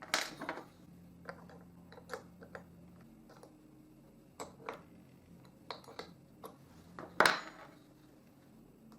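Hand tools clicking and clinking against the metal of a handheld power planer's cutter head as its knife and knife holder are adjusted: a dozen or so separate light knocks, the loudest near the start and about seven seconds in.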